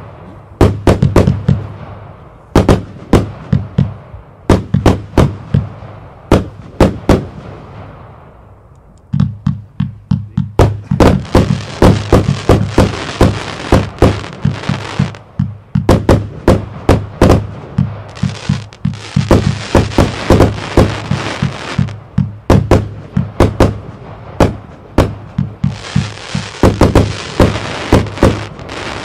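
A 144-shot, 25 mm compound fireworks cake firing a rapid string of shots and bursting stars. There is a short lull about a third of the way in, and there are several stretches of dense, continuous hiss under the bangs.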